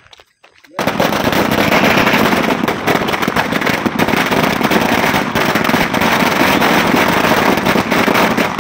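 A long string of firecrackers (a Diwali ladi) going off: after a short pause, about a second in it breaks into a rapid, unbroken rattle of bangs that keeps going.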